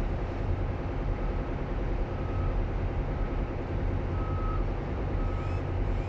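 Tugboat's diesel engine running, a steady low drone, with a short high beep repeating about once a second over it.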